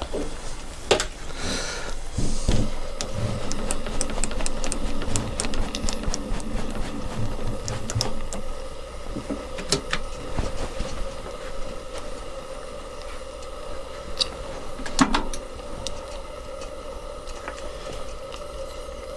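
Warco metal lathe running with a steady whine while turning metal stock, with scattered sharp clicks and a few low knocks in the first seconds.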